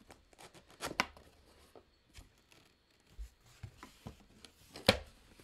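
Cardboard box being opened by hand: scattered small clicks, scrapes and rustles of the cardboard, with a sharp knock about a second in and a louder one near the end.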